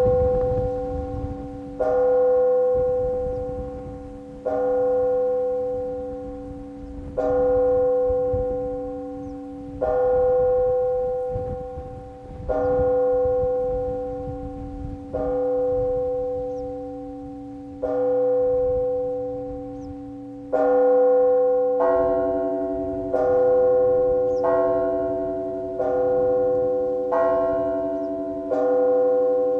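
Church bells rung for matins. A single bell is struck slowly, about every two and a half seconds, each stroke ringing on and fading. About two-thirds of the way through, a second bell with a different pitch joins in and the strokes quicken to a little over a second apart.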